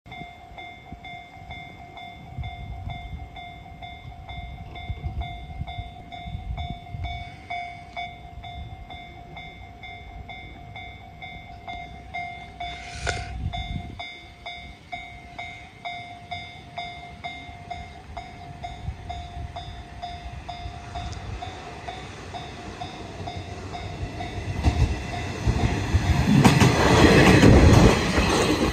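Level crossing warning bell ringing steadily in a pulsing tone as a train approaches, with one brief sharp sound about halfway through. From about 25 seconds in, a KiHa 185 series diesel train passes close by and its engines and wheels on the rails grow loud enough to drown the bell.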